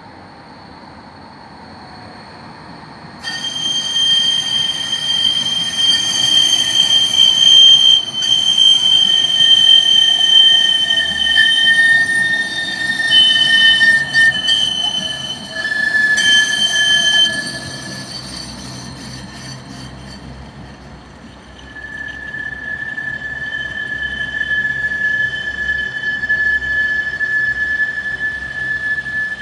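Tram wheels squealing on the rails, a loud, high screech of several tones at once that starts suddenly a few seconds in. It eases off a little past halfway, then sets in again as a steadier single high whine toward the end.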